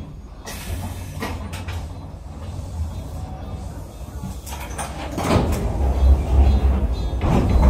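Inside an Echizen Railway train car: a steady low rumble with scattered knocks and clatter, growing louder from about five seconds in.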